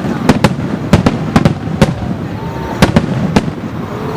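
Aerial fireworks bursting: a rapid, irregular string of about ten sharp bangs, several in quick pairs, with a pause of about a second in the middle, over a steady low rumble.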